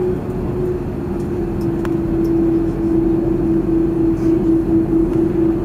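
Cabin noise inside an Airbus A330-200 taxiing after landing: the engines running at idle under a low rumble, with a steady droning tone that grows louder and slightly lower about two seconds in and then wobbles a little.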